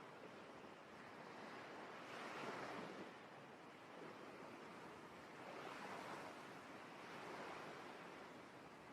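Faint ocean waves washing ashore, the surf swelling and fading in slow surges every few seconds.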